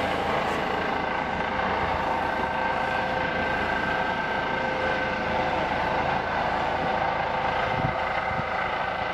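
A vehicle engine running steadily: a constant drone with a steady whine on top.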